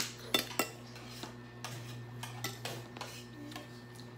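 Spoon and utensils clinking against glass bowls and dishes during a meal: scattered sharp clinks, the loudest right at the start and a few more in the first second, over a steady low hum.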